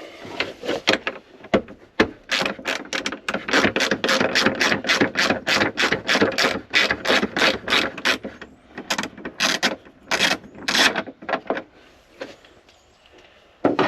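Small hand ratchet with a T40 Torx bit clicking through quick, even back-swings, about three to four a second, as it drives in a lock bolt, then a few slower strokes near the end.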